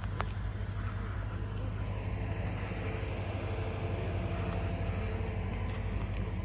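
Outdoor background noise: a steady low rumble, with a faint engine-like hum in the middle.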